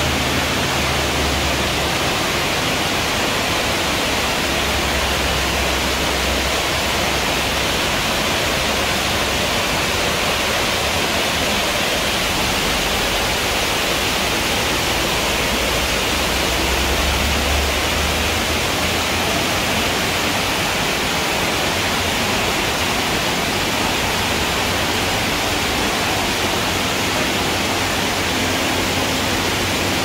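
Steady rushing of water: a shallow stream running across a floor and pouring over a small cascade.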